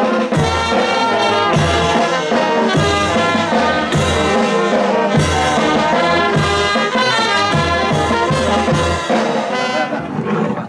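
Brass band playing: trumpets and trombones over sousaphones, a bass drum and a snare drum, with a steady beat. The drumming stops about nine seconds in and the music breaks off near the end.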